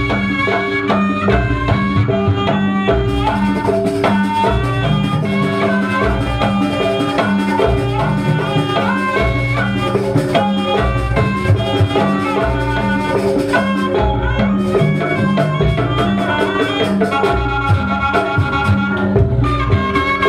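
Javanese jaranan accompaniment music playing without a break: a reed trumpet (slompret) plays a busy melody with quick note changes over drumming and gamelan percussion.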